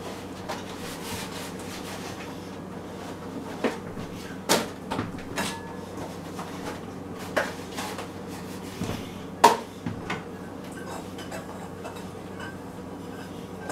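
Dishes and utensils knocking and clinking in a kitchen sink as they are washed by hand: a scatter of separate knocks, the loudest about two-thirds of the way through.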